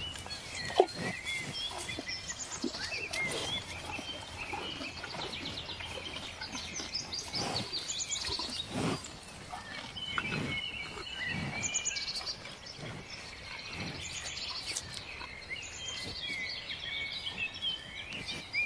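Many small birds chirping and twittering at once, short rapid calls overlapping throughout, over a steady background hiss with scattered low knocks.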